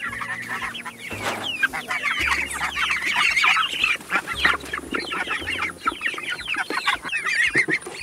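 A flock of chickens clucking and peeping, many short calls overlapping without a break, as the birds wait to be fed.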